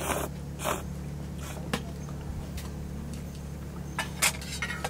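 Handling sounds at a camp table: a few brief rustles and clicks as a can of beer is set down, the loudest near the end, over a steady low hum.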